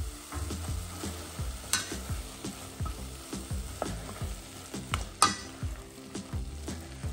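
Wooden spoon stirring diced vegetables frying in oil in a stainless steel pot, with a steady sizzle under short scraping strokes every half second or so. Two sharper clacks of the spoon stand out, the louder about five seconds in.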